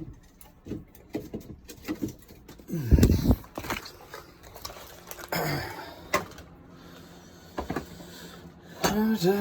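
Handling noises while rummaging for a ramen package: scattered clicks and knocks, a dull thump about three seconds in, and a brief rustle about halfway through.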